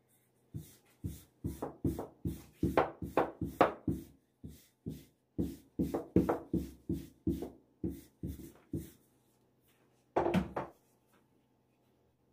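A quick run of sharp knocks, about three a second for some eight seconds, then a short close cluster of knocks near the end, from hand work with kitchen tools during baklava making.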